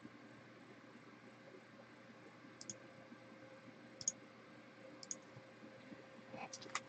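Near silence with a few faint, sharp clicks a second or so apart, coming closer together near the end.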